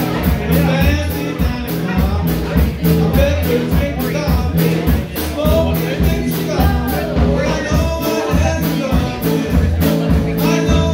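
Live rock band playing: electric guitars and a drum kit keeping a steady, even beat on the cymbals over a bass line, with a woman singing at times.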